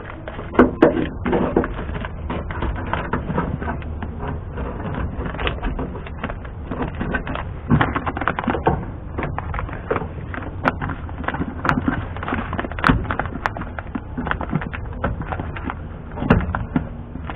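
Irregular rustling, clicks and taps of a plastic vapor-barrier sheet being handled and trimmed on a truck door, with a few sharper ticks partway through.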